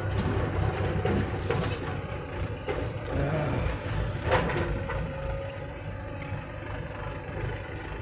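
JCB 3DX backhoe loader's diesel engine running under hydraulic load as the arm swings down and the bucket digs into soil, with a single sharp knock about four seconds in. The engine is quieter in the second half.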